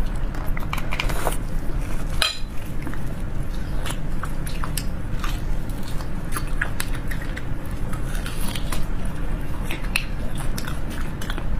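Close-miked eating sounds: biting and sucking at a red-braised beef marrow bone, with many short wet clicks and smacks. A steady low hum runs underneath.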